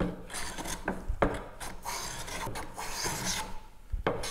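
Bench hand plane cutting shavings along the edge of a beech board: a run of about four hissing, rasping strokes, each under a second, with short knocks as the plane comes back or lands on the wood between strokes.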